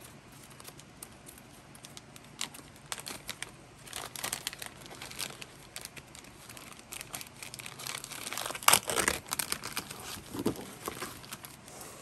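Packaging crinkling and rustling, with scattered short clicks and scrapes, as items are unpacked from a cardboard shipping box; busiest about eight to nine seconds in.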